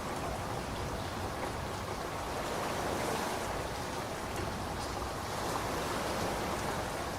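Steady rain falling: an even, continuous hiss that swells and eases slightly, with no distinct thunderclap.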